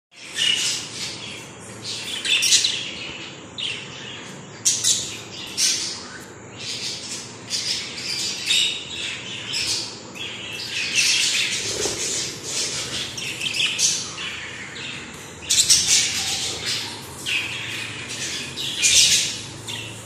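Young budgerigars chattering: a continuous stream of short chirps and squawks, with louder calls every second or so.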